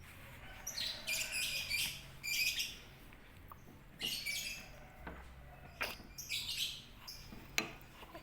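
Bird chirping in several short runs of rapid high-pitched notes, with a couple of sharp clicks in between.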